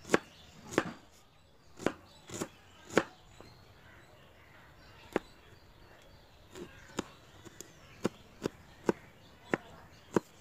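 Kitchen knife knocking on a wooden chopping board while slicing a red onion and then green chillies. The knocks are sharp and spaced irregularly at first. In the second half they come about twice a second.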